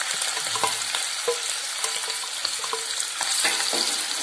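Pieces of spice-marinated yellowfin tuna sizzling in hot oil with curry leaves, just tipped into the pan, with scattered pops and crackles and the scrape of a wooden spatula moving the pieces about.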